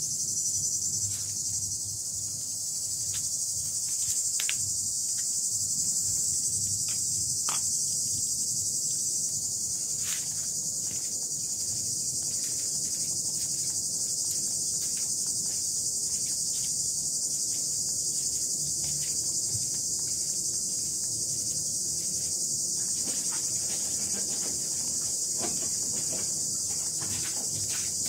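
A steady, high-pitched chorus of insects runs throughout. Over it are many small irregular clicks and smacks from kittens lapping and chewing soup from a bowl.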